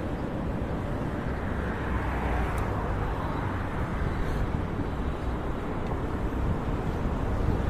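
Steady road traffic noise from passing cars, with wind rumbling on the phone's microphone.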